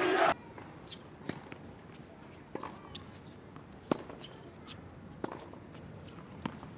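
A tennis ball bounced on a hard court before a serve: a sharp bounce about every second and a quarter over quiet court ambience. Crowd noise cuts off abruptly just after the start.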